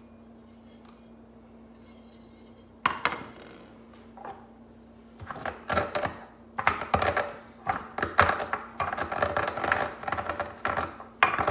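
Coffee beans crushed by pressing the flat bottom of a mug into a small ceramic bowl, a makeshift mortar and pestle: irregular crunching and grinding scrapes, ceramic on ceramic, running steadily from about halfway on. About three seconds in there is a single sharp clatter as a metal tray is set down on the tiles.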